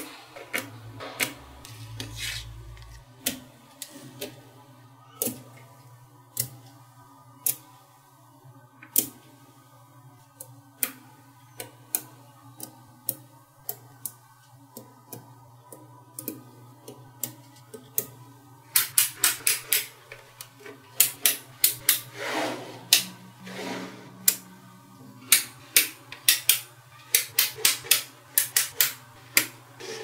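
Small magnet balls clicking sharply as they snap together and are set down into the structure. The clicks come singly at first, then in quick runs in the second half, over a faint low hum.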